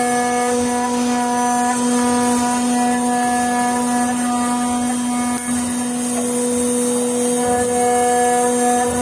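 Machining equipment running with a steady pitched hum and a high hiss, unchanging throughout.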